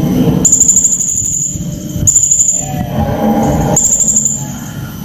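Serindit (blue-crowned hanging parrot) giving shrill, very high-pitched rapid trills, three bursts of about half a second to a second each, over a low background rumble.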